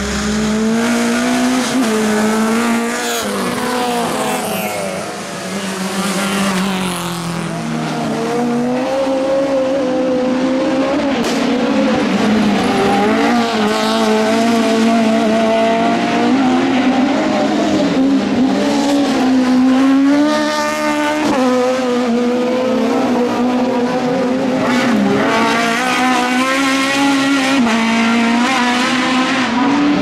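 Rallycross race car engines running hard, the pitch climbing and dropping again and again with throttle and gear changes as cars race past. A short burst of rapid crackling comes about two-thirds of the way through.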